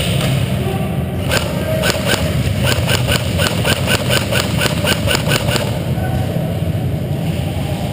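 Airsoft guns firing during a game: a run of short, sharp, evenly spaced shots, about four a second, from about a second in until past the middle, over a steady low hum.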